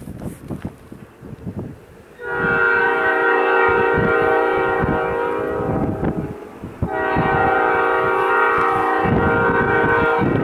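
Locomotive air horn on a GE Dash 8-32B sounding two long blasts, about four seconds each, with freight-car wheels clicking over rail joints beneath.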